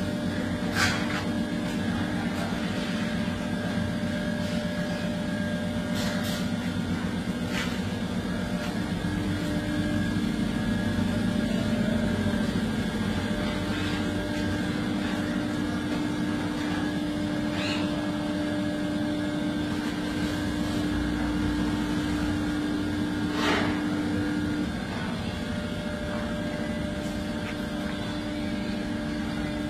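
Steady machine hum made of several held tones, one of which comes in about nine seconds in and drops out near twenty-five seconds, with a few short sharp clicks.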